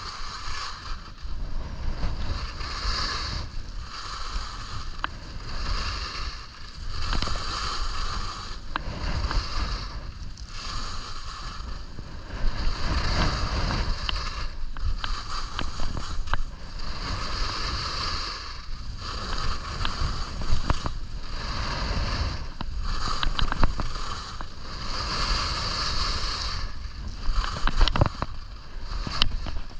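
Skis scraping and carving over packed snow, the hiss swelling and fading with each turn about every two seconds, over a steady wind rumble on the camera microphone.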